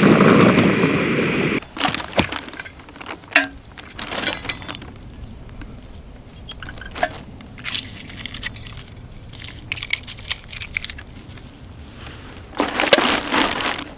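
A steady rushing noise for about the first second and a half, then it cuts off. After that, litter is picked up by hand off a rock and dropped into a plastic shopping bag: scattered light clicks and clinks of small metal and glass pieces, crinkling plastic, and a louder rustle of the bag near the end.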